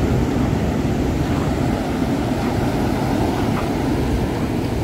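Steady wind rushing on the microphone over the wash of ocean surf breaking on the beach.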